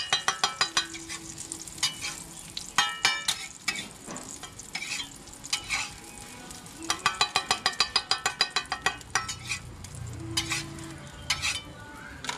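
Metal spatulas clacking on a hot roti griddle in quick rhythmic runs of about five or six strikes a second, with frying under them: a Thai street roti vendor cooking.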